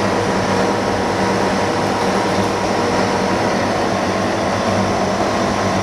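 Fan of a dust-free room's ceiling filter unit running: a steady, even rush of air with a constant low hum.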